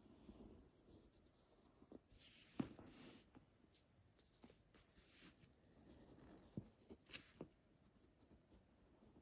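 Faint graphite pencil scratching on paper as lines are drawn, with the paper sheet rustling as it is turned on the table about two seconds in. A few light clicks and taps.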